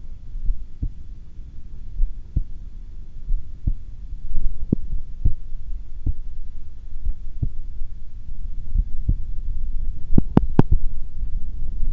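A woman's heartbeat, picked up close to the chest during a breath hold: steady low thumps a little under a second apart over a low rumble, with no breath sounds. About ten seconds in, three sharp clicks come close together, the loudest sounds here.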